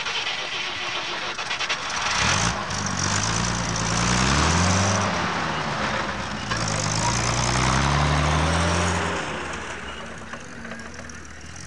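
Soviet GAZ dropside truck's engine pulling away and accelerating past, its pitch rising, dropping at a gear change about four to five seconds in, then rising again before it cuts back and fades away.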